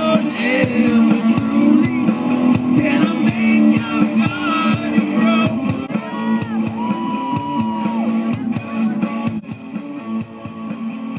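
Rock music with guitar and a steady beat, with some singing or shouting, fading down near the end.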